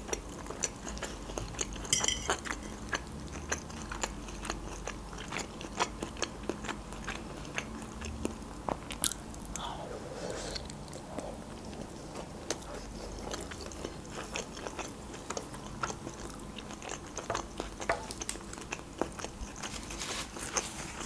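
Close-miked chewing and mouth sounds of a person eating crab stick salad from a fork, with many short sharp clicks and smacks.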